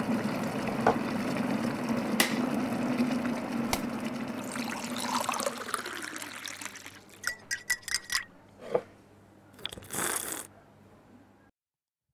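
Sound effects for an animated logo intro: a swelling rush like pouring liquid, then a quick run of light ringing clinks about seven seconds in and a short whoosh near ten seconds. The sound cuts off abruptly just before the end.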